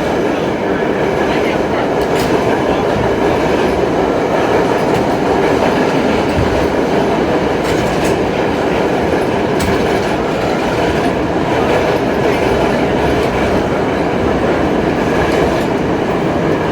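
R32 subway car running at speed, heard from inside the car: a steady, loud rumble of wheels on rail, with a few sharp clicks along the way.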